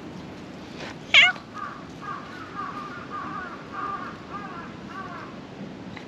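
Black cat giving one short, loud meow about a second in while being stroked, followed by a run of softer wavering calls for a few seconds.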